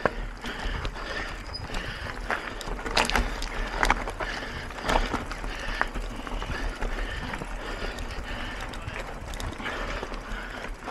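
Mountain bike ridden over rough ground: wind buffeting the microphone under a steady rumble of tyre noise, with a few sharp knocks and rattles from the bike, the loudest between about 3 and 6 seconds in.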